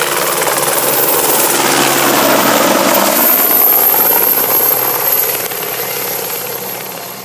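Helicopter flying low overhead, its rotor and engine noise swelling to a peak about halfway through, then fading as it moves away.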